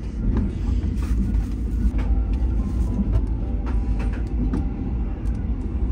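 Steady low rumble of a moving sleeper train heard from inside the carriage, with a few light clicks over it.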